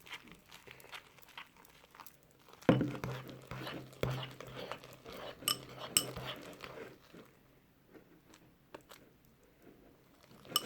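Fluffy slime mixture of shaving foam and glue being stirred in a container just after borax-glycerin activator was added, as it starts to set: scattered squishing scrapes and clicks, a louder knock about three seconds in, and two sharp clinks around five to six seconds, then mostly quiet near the end.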